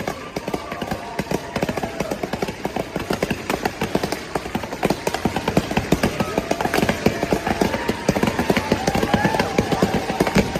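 A dense jumble of many sound effects layered at once: a rapid, crackling clatter of clicks with wavering whistle-like tones running through it.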